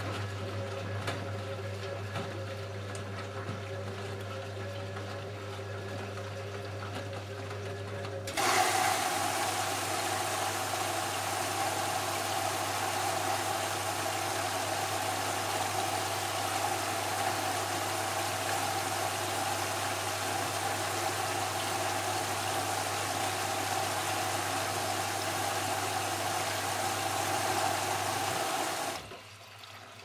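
Siemens Siwamat 285 front-loading washing machine hums steadily as its drum turns. About eight seconds in, water starts rushing in loudly as the machine fills, and it runs on until the sound cuts out near the end.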